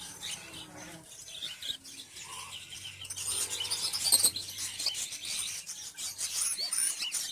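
Cockatiel chicks making rapid high begging chirps for food during hand-feeding, growing busier about three seconds in.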